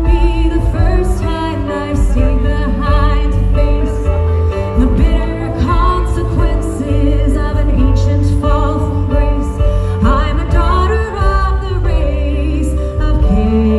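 A woman singing with vibrato over live band accompaniment with a strong bass.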